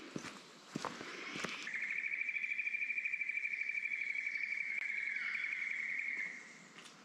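A few footsteps on a forest track, then from about two seconds in a steady, rapidly pulsing insect trill that lasts about four and a half seconds and fades away near the end.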